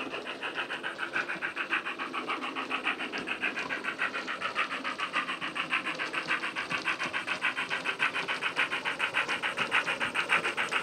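DCC sound decoder playing a GWR 15XX pannier tank exhaust sound file recorded from the real locomotive 1501, heard through the model locomotive's small built-in speaker. It gives rapid, even chuffs, growing slightly louder as the model approaches.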